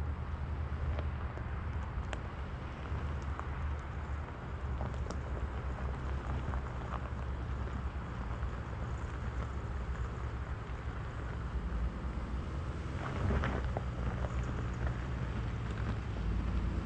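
The 2022 Infiniti QX55's engine works hard at high revs as the SUV climbs a steep dirt hill, heard from a distance under a low wind rumble, with small crackles of gravel under the tyres. It grows louder about two-thirds of the way through as the vehicle nears.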